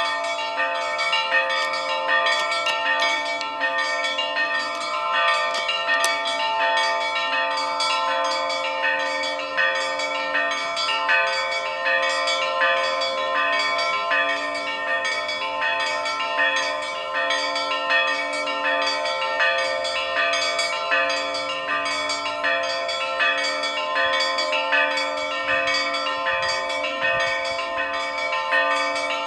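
Russian Orthodox church bells ringing (kolokolny zvon): smaller bells struck in a fast, even rhythm over the long, steady ring of larger bells.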